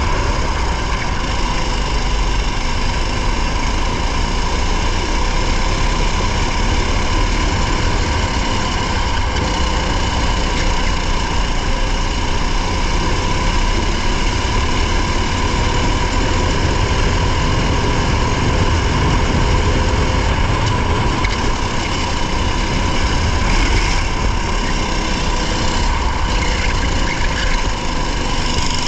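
Racing car's engine running at a steady pitch, heard from onboard, with a strong low rumble.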